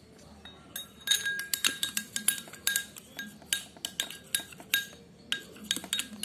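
A spoon clinking against the side of a glass bowl as it stirs the glue for slime: quick, repeated ringing taps, about three or four a second, starting about a second in.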